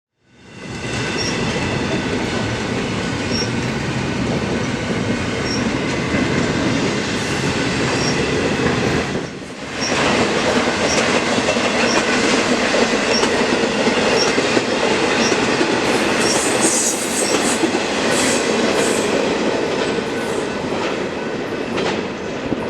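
Intermodal freight train's double-stack well cars rolling past at speed: a steady rumble of wheels on rail with high steady squealing tones and regular clicks about once a second. There is a brief lull about nine seconds in.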